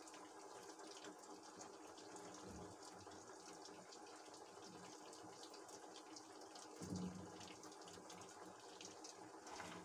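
Faint steady hiss with light clicks and scrapes of a metal spoon against a glass dish as soft chocolate cream is spread and smoothed, and a soft bump about seven seconds in.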